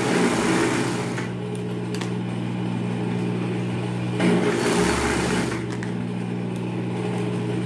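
Singer industrial overlock machine running, its motor humming steadily, with two louder runs of stitching, one at the start and one about four seconds in, as elastic is sewn onto a pajama waistband.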